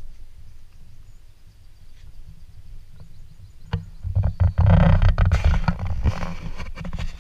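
Low, irregular rumbling noise on a handheld action camera's microphone, faint at first and much louder from about four seconds in, with crackling.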